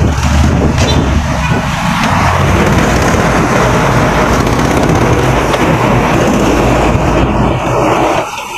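Wind rushing over the microphone, with road and traffic noise, while riding along a city street. It is loud and steady, easing slightly near the end.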